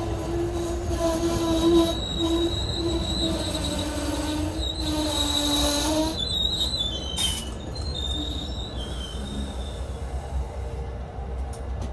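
Amtrak Northeast Regional passenger coaches rolling past with their wheels squealing in wavering tones over a low rumble. The lower squeal stops about six seconds in, with one sharp clack just after. A thin high squeal fades out a few seconds later.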